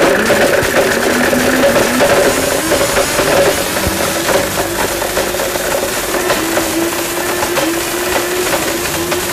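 Blendtec blender running flat out on golf balls, the hard pieces clattering and rattling against the plastic jar as they are smashed and ground up. The motor's whine rises in pitch over the first few seconds, then holds steady.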